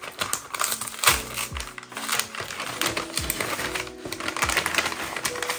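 Brown paper bag crinkling and rustling in quick crackles as its tape is peeled off and a hand reaches inside, over background music.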